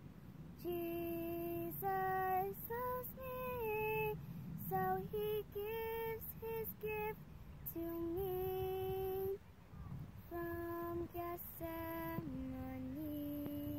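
A young girl singing a slow melody in short phrases with brief pauses, ending on long, lower held notes.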